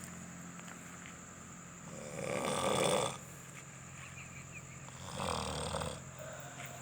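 A sleeping person snoring: two snores, the first starting about two seconds in, growing louder over about a second and stopping sharply, the second shorter, about five seconds in.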